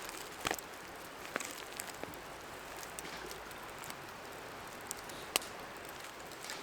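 Steady hiss of a flowing stream, with a few scattered sharp clicks and taps over it.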